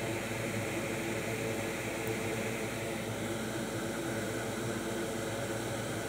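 Steady fan noise with a low hum beneath it, even throughout with no distinct clicks or knocks.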